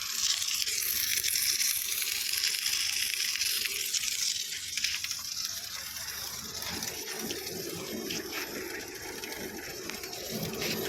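Welding in progress: a steady hiss with scattered crackles, easing a little about halfway through.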